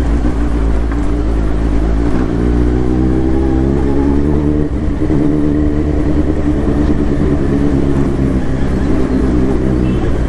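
Kawasaki Z900's inline-four engine with an Akrapovic exhaust running under way; its pitch rises over a couple of seconds, falls back briefly about four and a half seconds in, then holds steady.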